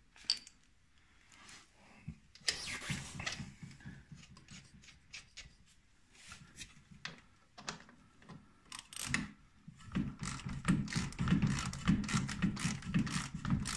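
Metal tools clicking and scraping, then about ten seconds in a fast run of ratchet-wrench clicks as the snowmobile's track adjuster bolt is turned to tighten the track.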